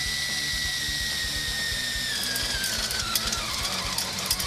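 Power drill with a step drill bit cutting through a tin plate under firm pressure. The motor whine is steady at first and falls in pitch over the last two seconds as the drill bogs under load, over a hissing metal-cutting noise with scattered crackles.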